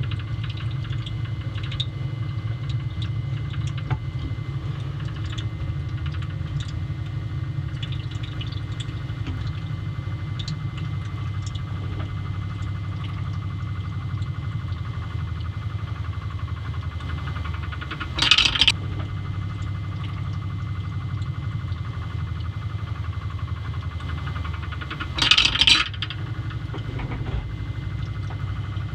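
Magnetic stirrer hot plate running with a steady low hum as it spins a stir bar in a beaker of warm water. Two short rattling clinks break in, about 18 and 25 seconds in.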